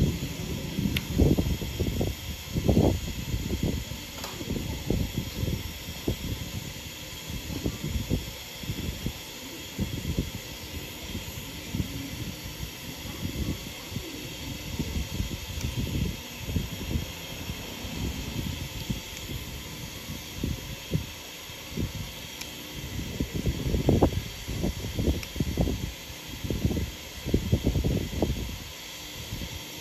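Steady background hiss with frequent irregular low thumps and rubbing, the handling noise of gloved hands working close to the microphone during a blackhead extraction.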